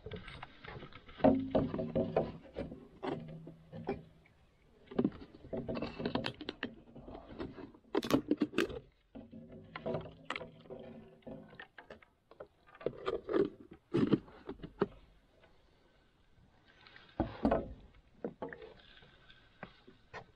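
Handling noises on a wooden dock: a run of knocks, clicks and rattles as a fishing rod, tackle box and bait bucket are handled, with a louder knock about three-quarters of the way through.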